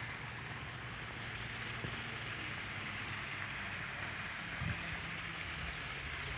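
Steady rush of falling water from a garden waterfall, with a faint low hum underneath and a brief low thump about four and a half seconds in.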